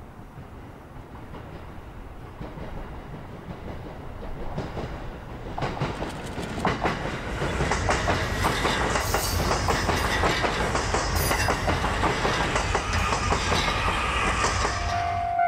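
A JR East train approaching and passing close by. The low rumble grows louder from about six seconds in, and the wheels then clack rapidly over the rail joints with a steady hiss until the end.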